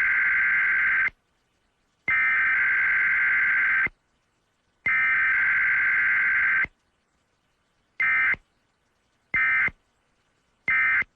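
Emergency Alert System data bursts, the harsh buzzing SAME digital tones that open an EAS broadcast. There are three long bursts of about two seconds each, then three short blips.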